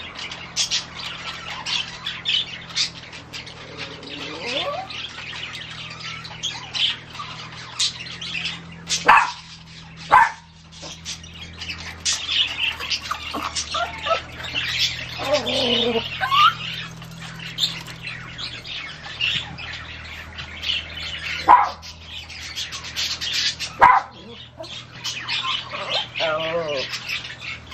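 Birds chirping and squawking busily throughout, with some wavering, gliding calls and a few louder sharp calls, over a faint steady low hum.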